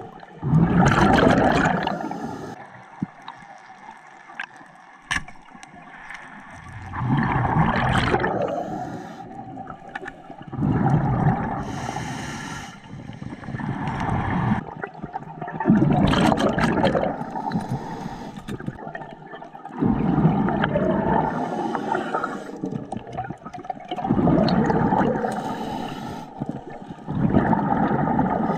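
Underwater recording of a scuba diver breathing through a regulator: bursts of bubbling exhaust every three to four seconds, with faint sharp clicks in between.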